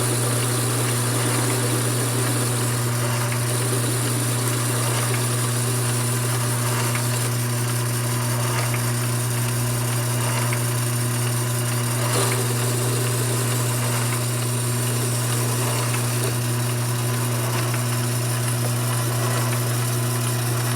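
Mini lathe running steadily, its motor giving a constant low hum that holds unchanged throughout.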